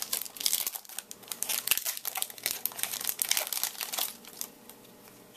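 Foil wrapper of a baseball card pack crinkling and tearing as it is opened by hand. The rapid, irregular crackles stop about four and a half seconds in.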